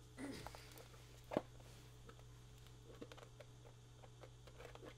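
Faint, scattered small clicks and snaps, the clearest about a second and a half in, as pliers grip and break 3D-printed support pieces free, over a low steady hum.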